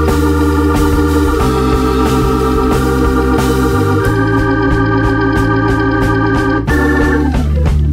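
Background music of held, organ-like chords that change every couple of seconds, sliding down in pitch near the end.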